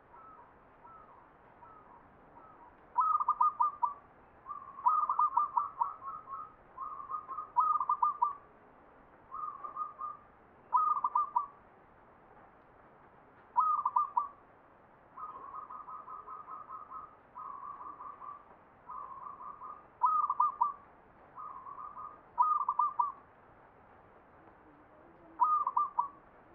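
Zebra dove (perkutut) cooing its rhythmic, rolling song, about a dozen phrases with short pauses between them, some loud and some softer. It is the four-part 'ngepat' song in the Mataram style.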